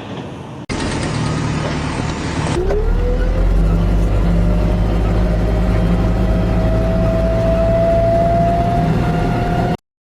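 Engine noise in short edited segments with abrupt cuts between them; in the last segment a running engine with a whine that slowly rises in pitch, ending in a sudden cutoff.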